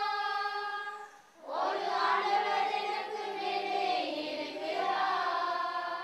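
A group of children singing a prayer song together in long, held notes, with a short breath break about a second in.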